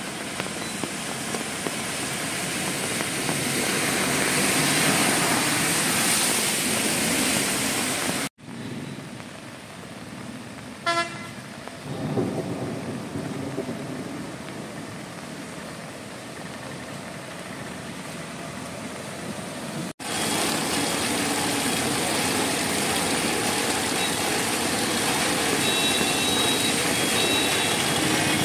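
Heavy rain falling on a waterlogged street, with passing traffic. The rain is quieter through the middle stretch. A vehicle horn toots once, briefly, about eleven seconds in, and a few short high beeps sound near the end.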